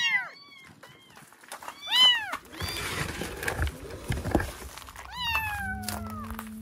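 Two newborn kittens mewing in a cardboard box: short high cries at the start and about two seconds in, then a longer falling cry near the end. Rustling and knocks of the box being moved run under the later cries.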